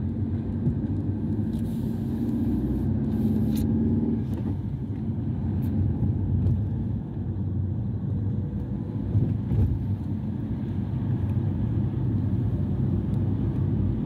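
Car engine and road noise heard from inside the cabin while driving, a steady low rumble; the engine note rises briefly between about two and four seconds in.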